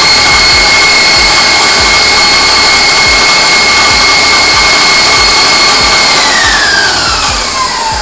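Electric stand mixer running at high speed, its wire whisk beating cream cheese filling: a loud steady motor whine that falls in pitch over the last two seconds as the mixer is switched down.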